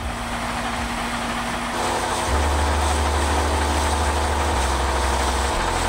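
Heavy truck's diesel engine running steadily under a loud rushing hiss; the deep engine drone grows stronger about two seconds in.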